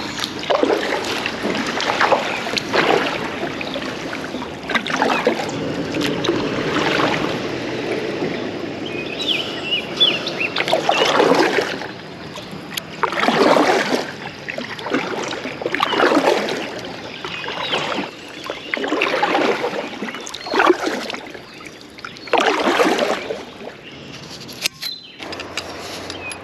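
Kayak paddle strokes, the blades dipping and pulling through creek water in a steady rhythm of one swoosh every couple of seconds.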